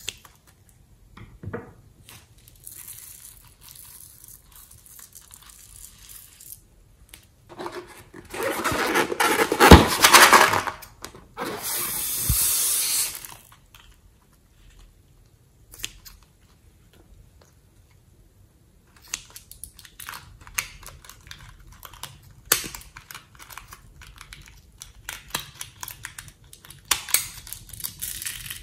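Small scissors snipping open rubber balloons and handling the stretched rubber. About a third of the way in there are a few seconds of louder, dense noise. Near the end comes a run of many small clicks and snips.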